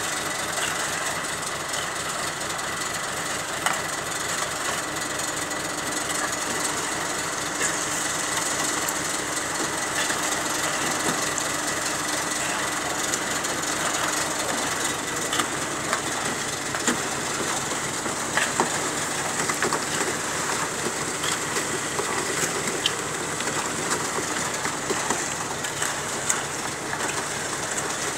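An engine running steadily: a fast, even low pulse under a steady hiss, with scattered light clicks on top.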